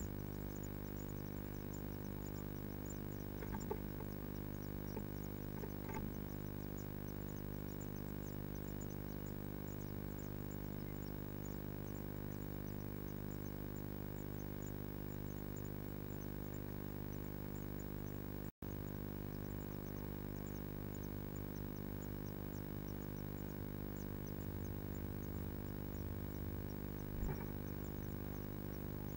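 Steady electrical hum from the nest-box camera's audio, with faint high ticks over it and a few soft knocks.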